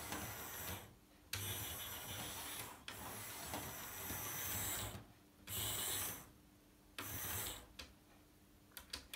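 Hornby OO gauge Smokey Joe 0-4-0 saddle-tank model locomotive running at full power, its small motor and wheels buzzing on the track. The sound cuts out briefly several times and dies away near the end as the loco stalls, the sign of its wheels losing contact on dirty track.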